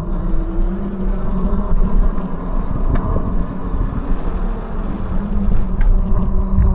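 E-bike riding along a concrete path: a steady motor hum over low wind rumble on the microphone and tyre noise, with a couple of light ticks near the end.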